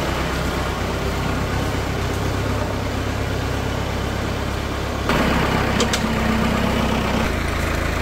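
A farm vehicle's engine running steadily, growing louder about five seconds in, with a couple of sharp clicks just after.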